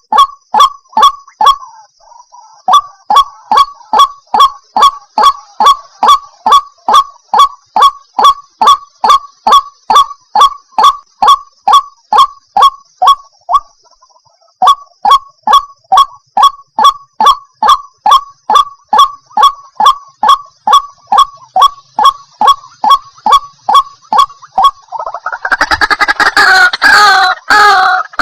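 White-breasted waterhen (ruak-ruak) calling: a loud monotonous series of sharp honking 'wak' notes, about two and a half a second, pausing briefly twice. Near the end a denser, louder jumble of calls takes over.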